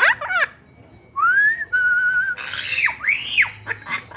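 Red-lored amazon parrot whistling: a quick run of swooping notes, then a rising whistle that levels into a held note, followed by harsher arching squawks.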